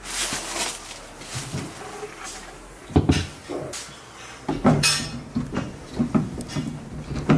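Knocks, clacks and rubbing as parts of a UV water filter system are handled, with several sharp taps; the loudest comes about three seconds in.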